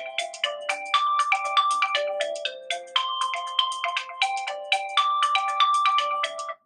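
Ringtone played through a Redmi 5 smartphone's loudspeaker: a quick, repeating melody of short pitched notes that stops suddenly at the end.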